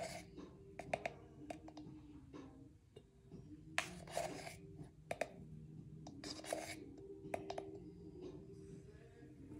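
White plastic measuring spoon scraping and tapping against a can of baking powder as a teaspoon is scooped and leveled off: a handful of short scrapes and light clicks at uneven intervals.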